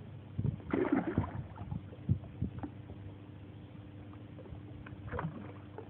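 Scattered knocks and rustling at close range as a hooked mudfish is handled and the hook worked out of it, over a faint steady hum.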